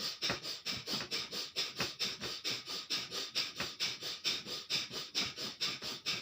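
Bhastrika pranayama (bellows breath): forceful breaths drawn in and pushed out through the nose, each a short hiss, in a rapid, even rhythm of about four strokes a second.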